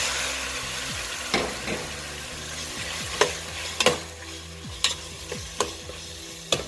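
Raw chicken pieces hitting hot oil and fried onions in an aluminium pot: a burst of sizzling that fades over a couple of seconds, then a low sizzle as a metal spoon stirs them, clinking against the side of the pot about once a second.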